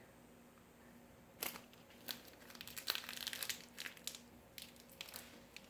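Packaging being unwrapped by hand: faint, irregular crinkling and rustling that starts about a second and a half in and comes in scattered bursts.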